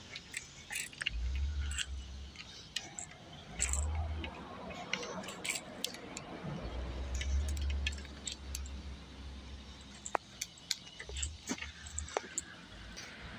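Footsteps over sandy, stony ground with many scattered light clicks, and low thumps of the phone being handled and swung while walking.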